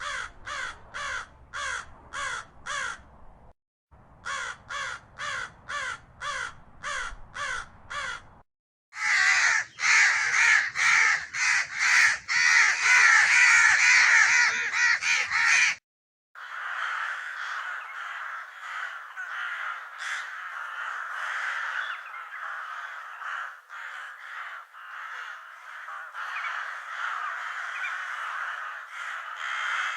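A corvid cawing in an even series, about two caws a second, in two runs with a short break between them. About nine seconds in, a flock breaks into loud overlapping cawing. After a brief gap at about sixteen seconds, a steadier, quieter and thinner flock chorus follows.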